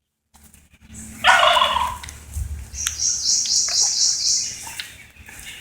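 A turkey gobbles once, a short rapid rattling call about a second in, followed by a high, rapidly pulsing chirp.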